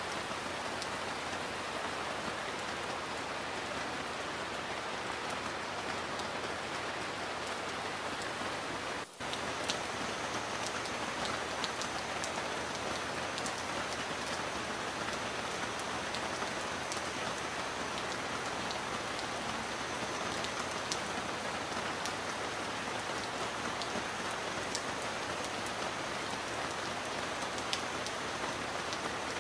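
Steady heavy rain: a dense, even hiss of falling rain with scattered sharp ticks of single drops, dipping briefly about nine seconds in.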